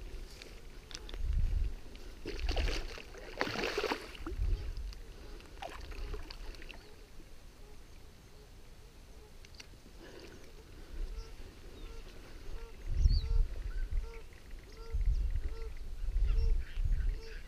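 Barbel caller rod (roepstok) worked in the river to call sharptooth catfish, making a short pitched plop that bends up and back down, about twice a second from about ten seconds in, with low thumps among them. Before that come scattered rustles and knocks.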